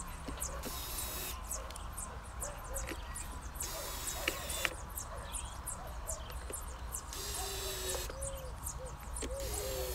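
Cordless drill-driver driving screws in four short runs of about a second each. Birds chirp and call throughout.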